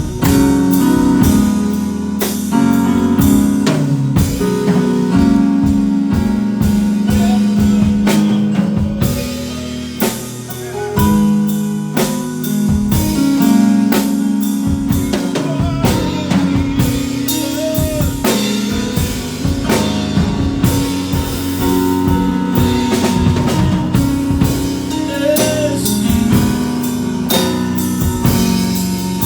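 Live band playing instrumentally: a drum kit keeps a steady beat with kick, snare and rimshots under held low notes and chords.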